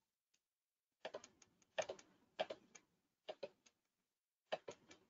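Faint computer mouse clicks in small quick clusters, about five over four seconds, starting about a second in.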